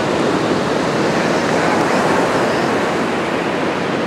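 Ocean surf breaking on a reef: a steady, even wash of waves and whitewater.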